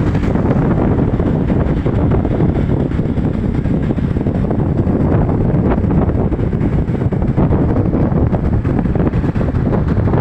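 Loud, steady wind rumble buffeting the microphone.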